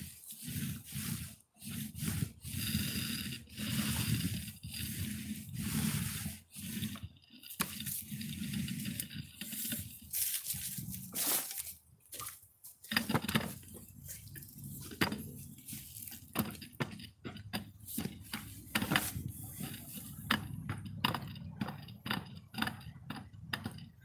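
Paint roller on an extension pole spreading thick waterproofing coating over wood in repeated strokes, with a wet, sticky sound, then reloading with a string of clicks and clinks in the second half.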